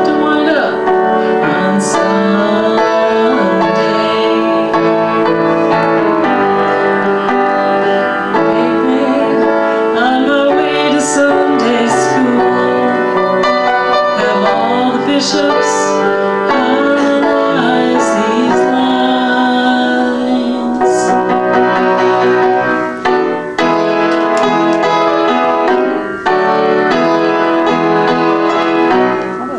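Piano playing an instrumental passage of a rock song, live, with full chords and a busy melodic line.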